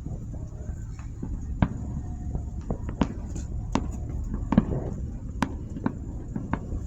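Fireworks going off, with about eight irregular sharp pops and cracks over a low steady rumble.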